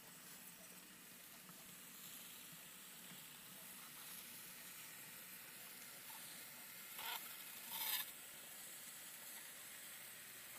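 Faint steady hiss of an N scale model train running along its track, picked up by a small camera riding on the train. Two brief louder rasps come about seven and eight seconds in.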